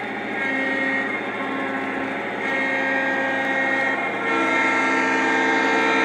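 Model diesel locomotive running along the track with a steady motor whine and humming wheel noise, growing louder as it approaches.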